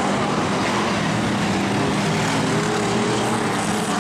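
Speedway race cars' engines running together as a pack races round a dirt oval, a steady loud drone made of several engine notes at once.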